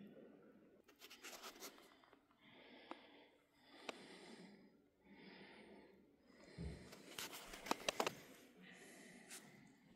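Faint scratching and handling noise close to the microphone, with a cluster of sharp clicks about three-quarters of the way through, and soft breathy swells in between.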